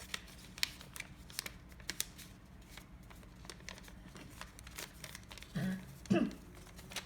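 A square of origami paper crackling and crinkling in the hands in scattered sharp clicks as it is pushed and pinched into a sink fold. Two short bits of voice come near the end.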